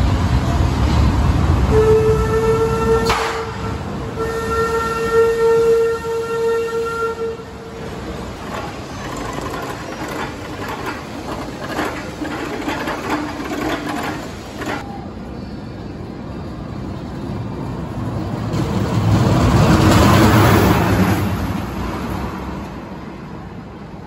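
Empty test train of an Arrow Dynamics steel roller coaster running. A low rumble at the start, then a steady whine for about five seconds with a sharp click partway through. Near the end the train rumbles along the track, swelling and then fading.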